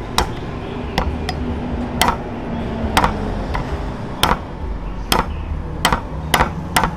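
Kitchen knife chopping garlic cloves on a wooden chopping board: sharp knocks of the blade on the wood, unevenly spaced, about one or two a second.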